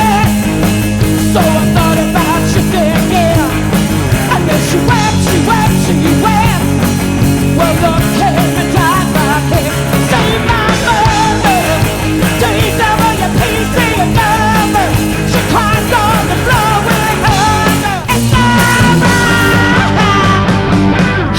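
Rock music from a live cover band playing without words, loud and dense, shifting to a different passage about eighteen seconds in.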